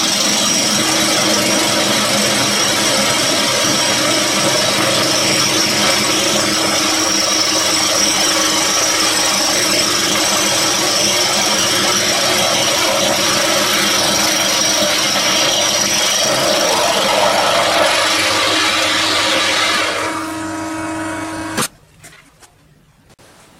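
Vertical milling machine running and cutting metal, a steady mechanical din with a constant hum. It fades and stops near the end with a sharp click.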